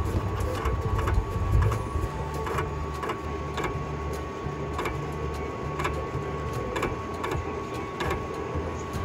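Vinyl cutting plotter cutting a sheet: its motors hum, shifting pitch in steps as the cutter head and feed roller move, over a steady high tone, with short clicks every second or so.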